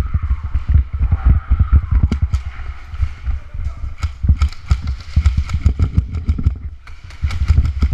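Footsteps and gear knocking against a body-worn action camera as an airsoft player moves through an indoor arena: irregular heavy thumps mixed with sharp clicks and snaps, which come thicker about halfway through.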